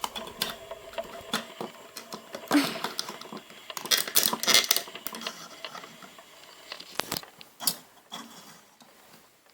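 Small plastic toy pieces clicking and clattering as they are handled and set in place, with a few louder knocks about two and a half seconds in and around four to five seconds in.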